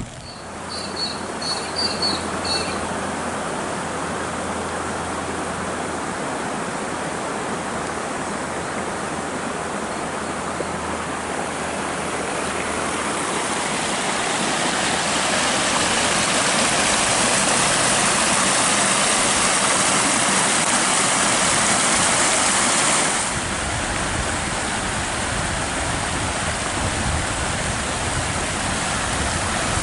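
Floodwater rushing, a steady loud rushing noise that swells about halfway through and drops back suddenly a few seconds before the end. A faint low hum sits under the first part, and a few short high chirps come near the start.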